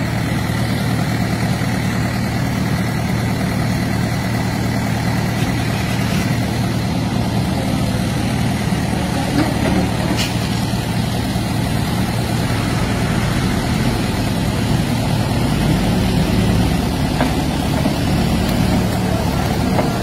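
Diesel engine of a Terex TLB 740S backhoe loader running steadily, a constant low drone.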